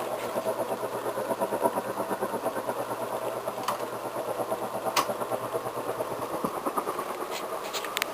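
Canarm CP56 56-inch industrial ceiling fan running: a steady motor hum whose loudness pulses quickly and evenly, with a few sharp ticks, the sharpest about five seconds in.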